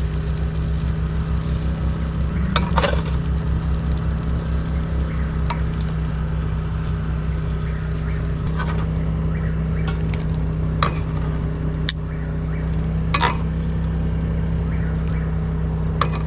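An engine running at a steady drone, with a few short sharp sounds over it, about three seconds in, near eleven and thirteen seconds, and near the end.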